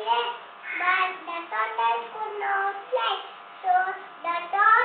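A young girl singing in short phrases with brief pauses between them.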